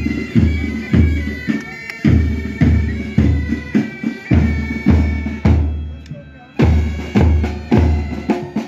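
Military pipe band playing: bagpipes with their drones over a steady marching beat of bass and side drums, about four beats every three seconds. The music drops away briefly about six seconds in, then comes back.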